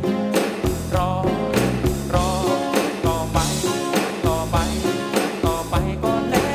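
A live rock band playing a Thai song: a male lead singer sings over drums, bass and guitar, with the drum hits keeping a steady beat.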